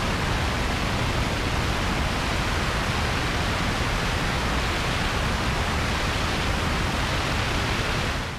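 Steady rush of wind over a camera mounted outside under the wing of a Cessna 182RG climbing out just after takeoff, with the airplane's engine and propeller mixed in beneath.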